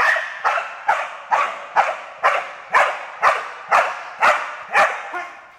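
A young Belgian Malinois barking in a steady series of about eleven barks, roughly two a second, stopping shortly before the end. These are agitation barks at a decoy in a bite suit during bitework training.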